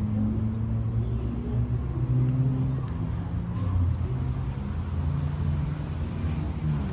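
Benelli TNT 600 inline-four motorcycle engine running at idle through its dual exhaust, loud, with a low steady note that wavers a little in pitch.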